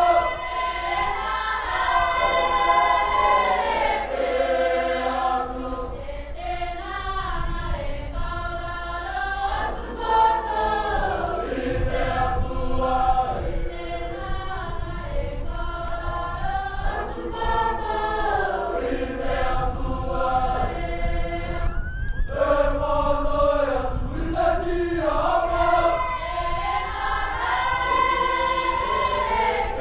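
Cook Islands imene tuki: a large mixed choir of female and male voices singing unaccompanied in harmony, many voice lines bending and sliding in pitch. The singing breaks off briefly about three-quarters of the way through, then the voices come back in.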